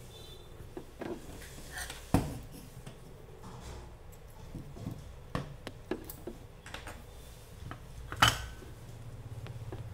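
Handling noise from a projector power-supply circuit board and soldering iron on a hard workbench: scattered light clicks and clinks, with two louder knocks about two seconds in and just after eight seconds.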